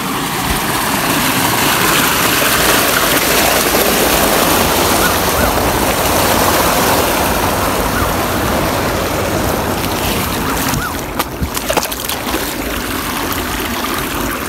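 Muddy irrigation water rushing steadily out through a breach in a lined watercourse and spreading across a flooded field. The rush turns uneven, with a few bumps, after about eleven seconds.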